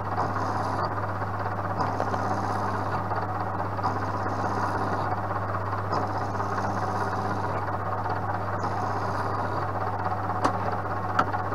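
Vertical milling machine running, its long-series end mill cutting a nylon workpiece that is being rotated on a spin indexer to mill an eccentric. The motor gives a steady hum, with a higher cutting hiss that comes and goes in stretches of about a second, and two sharp clicks near the end.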